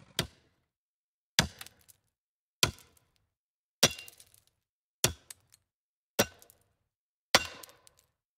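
Sharp click sound effect repeated seven times, evenly about every 1.2 seconds, each stroke with a brief ringing tail.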